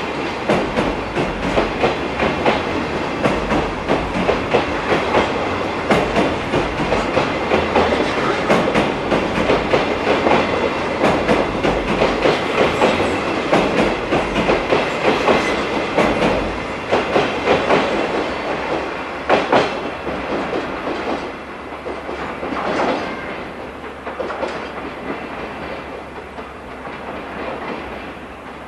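Steel wheels of a slow-moving train of long-rail flatcars clattering over rail joints and points, a rapid clickety-clack. It grows quieter over the last several seconds as the train draws away, with a few single louder clacks.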